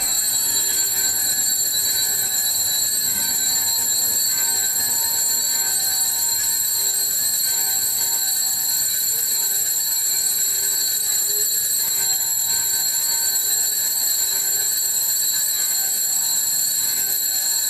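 Electric bell ringing continuously with a steady, high-pitched ring, rung for the blessing with the monstrance at benediction. It starts abruptly and holds at an even level throughout.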